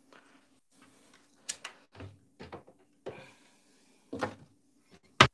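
Doors and cupboards being opened and shut: a run of separate knocks and clunks, the loudest a sharp knock near the end, over a faint steady hum.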